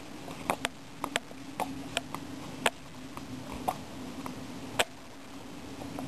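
Footsteps on a trail of dry fallen leaves and twigs: about a dozen sharp, irregular crackles and snaps, over a faint steady low hum.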